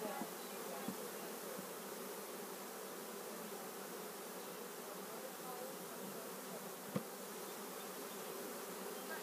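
A mass of honeybees buzzing steadily around an open hive as a package is installed, many wings humming at once with wavering pitches. A single sharp knock about seven seconds in.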